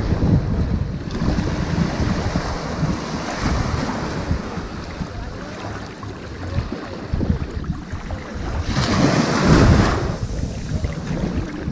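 Ocean waves washing onto a sandy beach: a continuous wash of surf, with a louder wave breaking and running up about nine seconds in.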